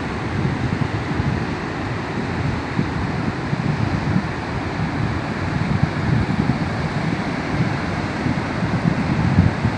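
Rough, choppy sea surf churning continuously against the coast, a steady roar with no single wave standing out, with wind rumbling on the microphone.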